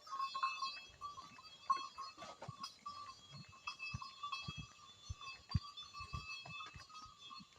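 Goats moving about, with irregular dull thumps and knocks over a steady high-pitched tone.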